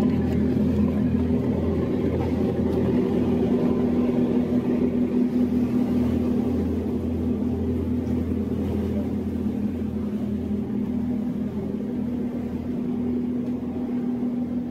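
Sightseeing boat's engine running steadily while moored at the pier, a constant low drone with a steady hum.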